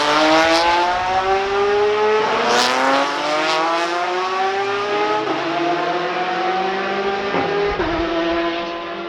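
Race car engine accelerating hard through the gears: the pitch climbs steadily and drops back at three upshifts, with a few sharp cracks around the first shift. It fades slightly as the car pulls away.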